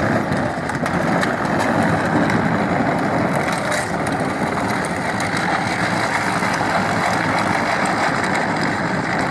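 Power Wheels Jeep Hurricane ride-on toy, run on 24 volts, driving over rough ground: a steady run of its electric drive with plastic wheels crunching over the ground.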